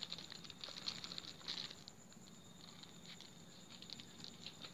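Fingers scraping and crumbling potting soil off a serut bonsai's root ball, a faint gritty patter of scratches and falling soil. The scratching is busiest in the first couple of seconds and picks up again near the end.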